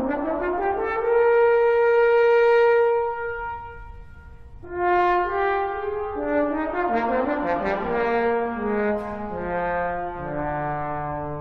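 Solo trombone playing a slow melodic line: it climbs to a long held high note that swells and dies away, then plays a phrase of shorter notes stepping downward to a low note near the end.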